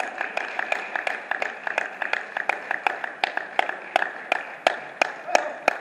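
A steady series of sharp taps, about three a second, over the murmur of a busy sports hall.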